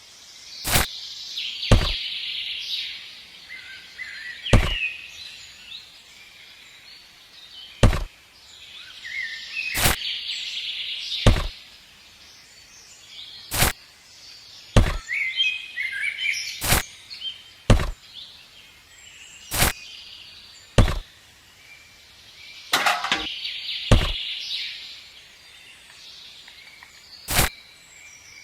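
A series of sharp knocks at irregular gaps of one to three seconds, with bird chirps in between.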